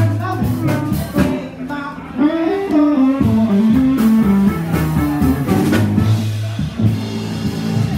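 Live blues band playing amplified through PA speakers, with guitar and drum kit over a steady low line.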